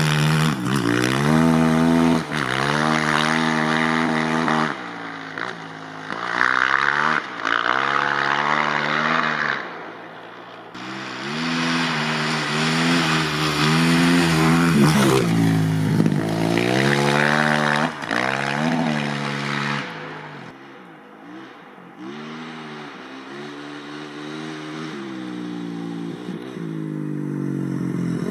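2013 Kawasaki KX450F's single-cylinder four-stroke engine revving up and down as the dirt bike is ridden, its pitch climbing and dropping with each burst of throttle. Twice, about a third and about two thirds of the way through, it falls back to a low idle, then builds steadily again near the end.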